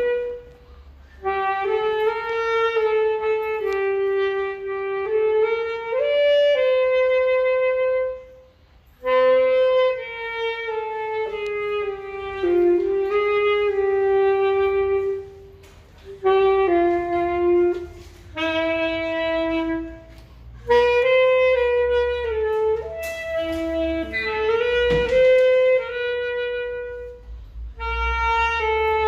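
Music: a solo melody on a reed wind instrument like a saxophone, played in phrases a few seconds long with short breaks between them, over a low steady rumble.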